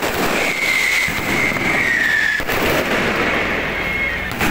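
Fireworks going off overhead in a dense, continuous crackle of pops. A high whistle sounds from about half a second in to past two seconds, falling slightly in pitch, and returns faintly near the end.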